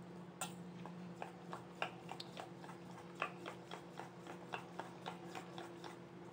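Spoon beating thick besan (gram-flour) batter in a stainless steel bowl: faint clicks and taps of the spoon against the bowl, unevenly spaced, about three a second, over a low steady hum.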